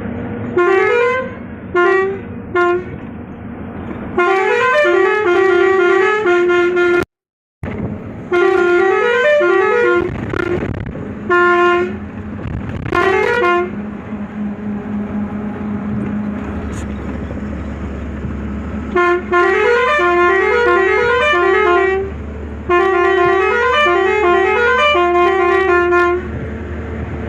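Indian truck musical multi-tone horns play quick melodic note sequences in repeated bursts, the notes stepping up and down like short tunes. Steady road and engine noise runs underneath.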